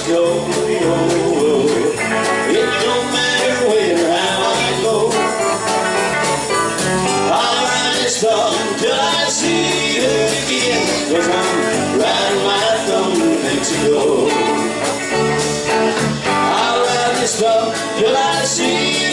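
Live country band playing an instrumental break: a bending electric lead guitar line over rhythm guitar, electric bass and a steady drum beat.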